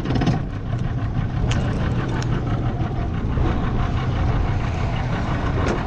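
Boat motor idling steadily, with a few sharp clicks over it.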